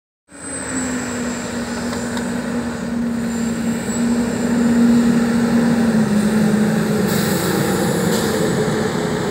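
Large tour bus towing an enclosed trailer driving past: steady engine and tyre noise that starts abruptly, grows loudest about halfway through, and then eases. The engine hum drops slightly in pitch as the bus passes.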